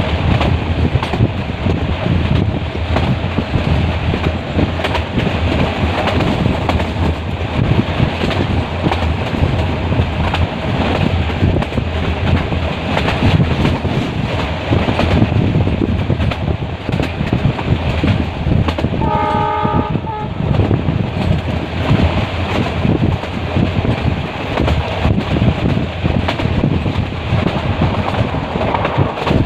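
Metre-gauge passenger train running on the rails, a steady rumble and clatter of the coaches. About two-thirds of the way through, the locomotive horn sounds once for about a second and a half.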